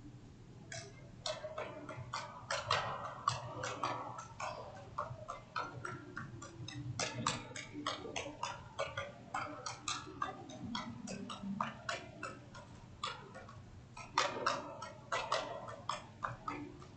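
Juggling clubs smacking into the hands with each catch of a five-club pattern, a fast, even run of sharp clicks at about four a second that begins about a second in.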